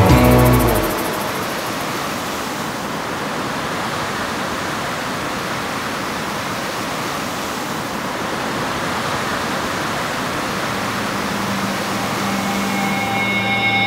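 Steady rushing of ocean surf, an even wash of noise without distinct wave crashes. Music fades back in faintly near the end.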